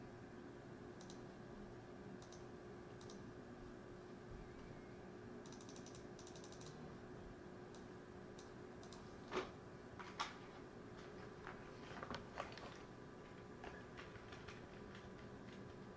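Sparse keystrokes on a computer keyboard: scattered light taps, a short run of them about six seconds in and a few louder clicks around the middle, over a faint steady hum.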